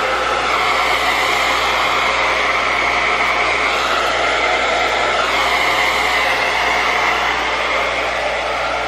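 Handheld hair dryer running steadily with a whirring hiss, its tone shifting a little about halfway through as it is moved around the head.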